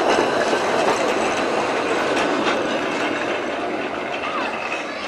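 Blackpool Progress Twin Car tram set rolling along the tramway, its wheels clicking over the rail joints, fading steadily as it moves on.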